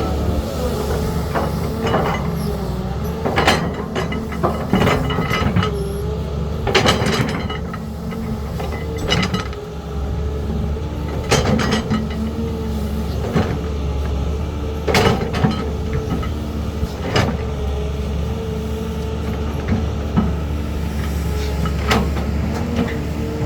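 Caterpillar 320 hydraulic excavator's diesel engine running steadily under a steady whine, with repeated sharp metallic clanks and knocks every second or two as it works.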